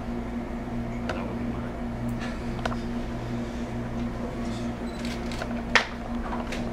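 Room ambience with a steady low hum, faint rustles and murmurs, and a single sharp click about six seconds in.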